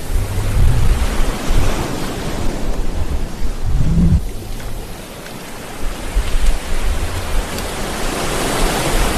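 Sea surf washing onto a sandy beach, heard as a loud, uneven rushing, with wind buffeting the camera microphone in gusty low rumbles.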